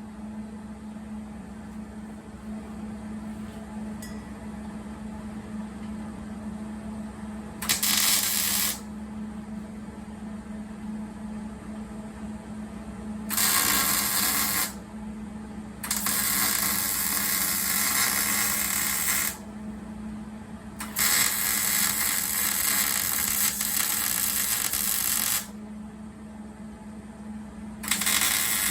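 Arc welding on steel: the arc crackles in five bursts of about one to four seconds each, starting and stopping sharply as each bead is laid. A steady low hum carries on underneath.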